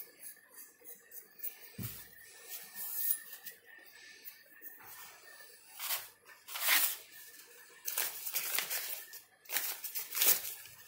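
Paper and tissue being handled on a workbench: scattered short rustles and crinkles, mostly in the second half, after a dull knock about two seconds in.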